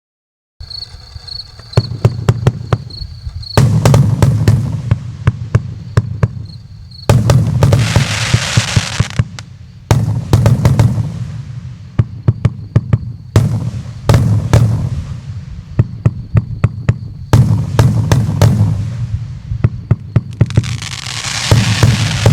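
Multi-shot consumer firework cake (Joker JF C30-75/01 'Kaboom') firing: rapid runs of sharp launch pops and bursts, with two stretches of crackling hiss partway through and near the end.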